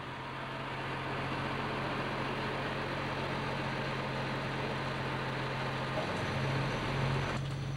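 Fire engine running steadily: a constant low engine hum under an even rushing noise. The rushing drops away sharply near the end.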